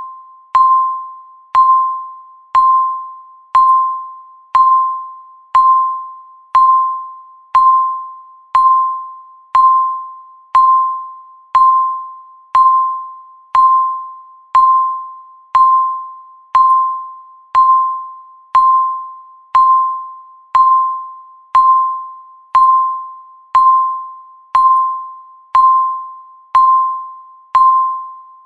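Countdown timer beeping once every second: a steady train of identical, sharp-onset tones pitched near 1 kHz, each dying away before the next.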